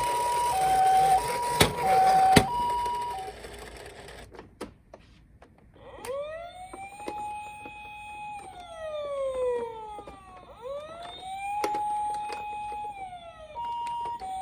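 Toy ambulances' electronic sirens. First a two-tone hi-lo "pee-po" siren, with two sharp clicks, stops about three seconds in. After a short gap, a wailing siren rises, holds and falls twice, and near the end the two-tone siren starts again.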